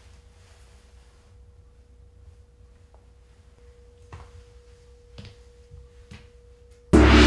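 A faint, steady single pure tone held for about seven seconds, with three soft knocks about a second apart. Loud guitar music cuts in abruptly near the end.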